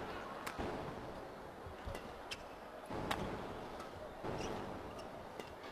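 Badminton rally: several sharp racket-on-shuttlecock hits, roughly a second apart, over a faint steady arena background.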